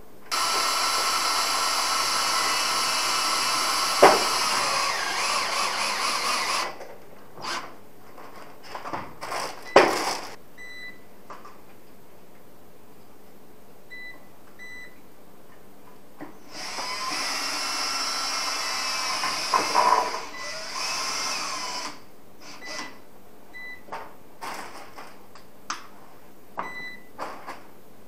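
A power tool's motor runs steadily in two stretches of about six seconds each, the loudest sound, with a couple of sharp clicks. Between them a UPS gives short, faint beeps every few seconds, its alarm that the 220 V mains input has been cut and it is running on battery.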